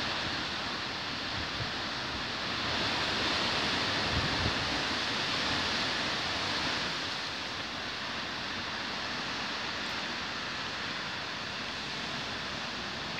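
Strong wind blowing through leafy trees: a steady rush of rustling leaves that swells about two seconds in and eases after about seven seconds. A brief low gust hits the microphone about four seconds in.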